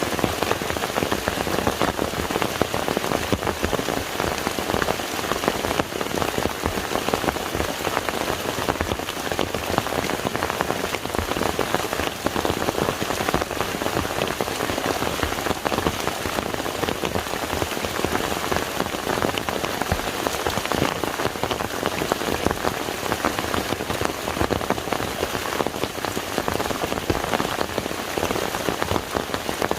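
Steady rain falling on a lake's water surface, a dense even patter of many small drops.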